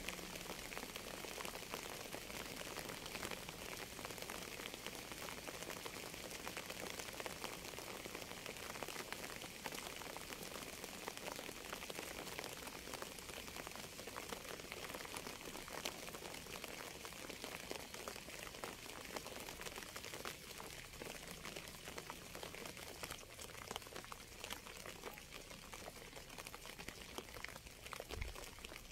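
Steady rain falling, a dense, even patter of drops.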